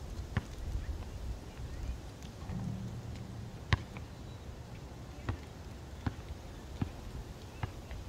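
A basketball bouncing on a concrete court: scattered sharp knocks that settle into a steady dribble of about one bounce every 0.8 seconds in the second half, with one louder knock nearly four seconds in.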